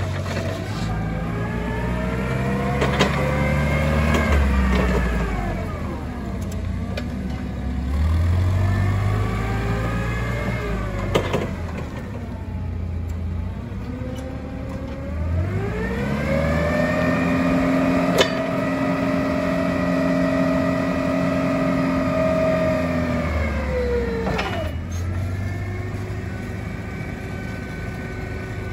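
The propane engine of a 2002 Tailift FG25C forklift running, its pitch rising and falling as it drives and manoeuvres. Past the middle it climbs and holds at steady high revs for about eight seconds while the mast is raised, then drops back. A few sharp clicks are heard along the way.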